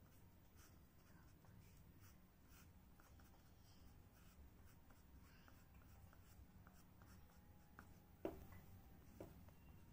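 Faint scratching of a graphite pencil on paper in short, repeated strokes as fin lines are drawn. There is one sharper click a little past eight seconds in.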